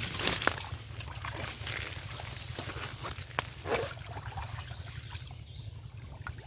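Shallow muddy water being splashed and sloshed by hand, with several sharper splashes in the first four seconds and softer sloshing after that, over a steady low rumble.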